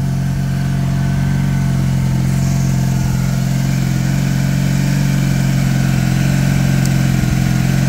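1997 Honda Magna's 750 cc V4 engine idling steadily.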